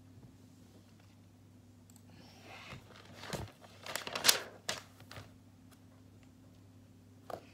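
Crinkling and tearing of something being handled for about three seconds in the middle, with a few sharp clicks, over a steady low electrical hum.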